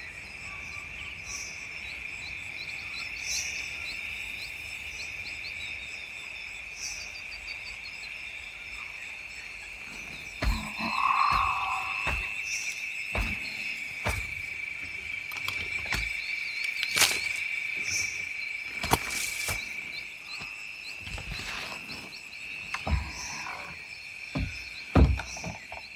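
Crickets and other insects chirring, a steady high drone with repeated chirps above it, in a film soundtrack's nature ambience. Scattered knocks and thumps come in from about ten seconds in.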